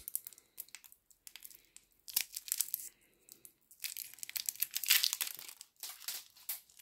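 Small plastic packet crinkling and being torn open by hand, in irregular crackles that get busier and louder about four seconds in.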